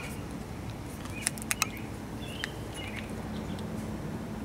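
Small birds chirping now and then. About a second and a half in come three or four sharp clicks, a plastic bottle cap being twisted open.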